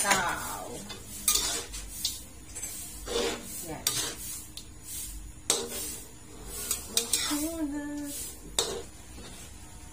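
Metal spatula scraping and clanking against a wok, stirring pork adobo and string beans in irregular strokes.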